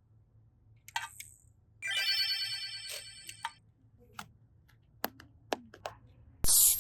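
A bright, ringing electronic chime-like tone lasting about a second, then a few sharp clicks and taps, then a loud burst of rustling or crunching noise near the end.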